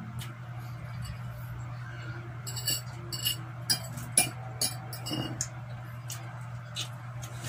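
Close-up eating sounds at a table: chewing and mouth smacks with cutlery clicking on a plate, as a quick run of sharp clicks from about two and a half to five and a half seconds in. A steady low hum runs underneath.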